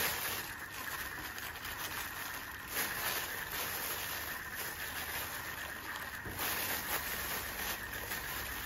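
Thin plastic food-prep gloves crinkling and rustling as hands press and flatten a sticky marshmallow-and-cracker mixture in a dish, with louder swells of rustling about three seconds in and again past six seconds.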